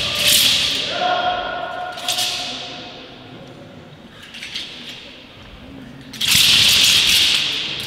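A wushu broadsword swung hard: sharp whooshes of the thin steel blade and its flag, with a ringing note from the blade about a second in and thuds of feet on the mat. A longer rushing hiss comes near the end.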